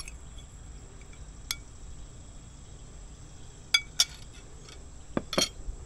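Cooking utensils clinking against cookware, about six short sharp clinks spread out, the loudest two close together about four seconds in, over a steady high chirring of crickets.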